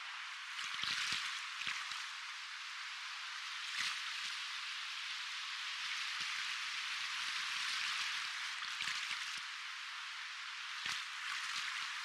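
Soft ocean waves washing: a steady hiss of moving water with a few small, sharp splashes, swelling gently a little past the middle and easing off again.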